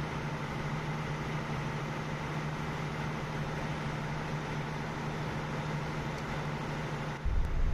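Steady drone of a ship's running machinery: a constant low hum with fainter steady higher tones over an even wash of noise.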